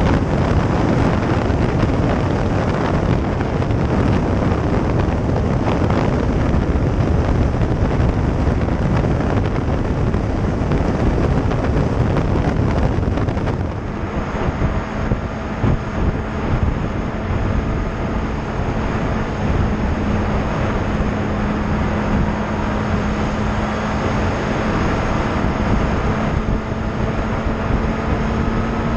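Sport motorcycle at road speed: wind rushing over the microphone, with the engine running underneath. About halfway through the wind noise eases a little, and a steady engine drone comes through, its pitch slowly creeping up.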